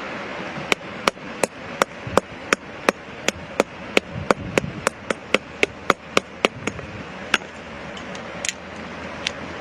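Hammer striking rock in a steady rapid series of sharp blows, about three a second, which stops after about seven seconds, followed by a few scattered strikes.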